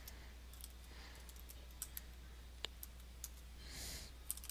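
Faint keystrokes on a computer keyboard: scattered, irregular key clicks as a sentence is typed.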